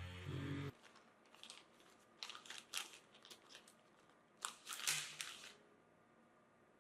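Music that cuts off abruptly under a second in, followed by an irregular scatter of short crinkling, rustling noises that stop about a second before the end.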